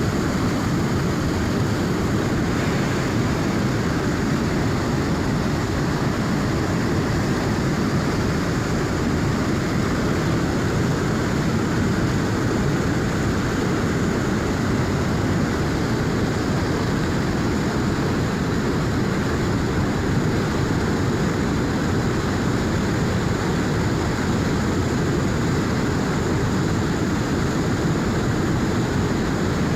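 River running at high flow, a steady, unbroken rush of water that is heaviest in the low range.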